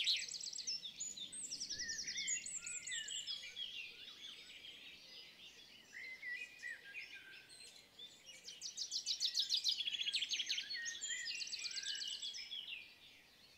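Outdoor birdsong: varied chirps and fast trilled phrases, strongest about two-thirds of the way through and fading out near the end.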